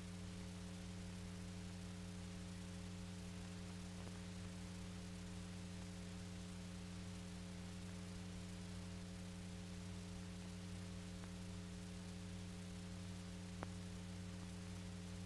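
Steady electrical hum with background hiss from the recording itself. One faint click comes near the end.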